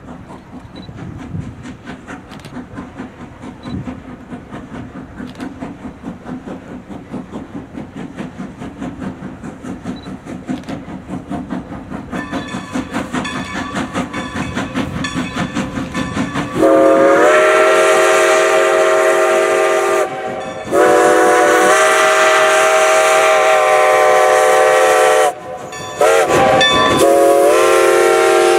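1924 Baldwin 2-10-0 steam locomotive working hard under load, its exhaust beating quickly and evenly and growing louder as it approaches. About halfway through, its whistle begins to blow in long blasts, broken twice briefly, with the pitch sagging slightly near the end as it passes.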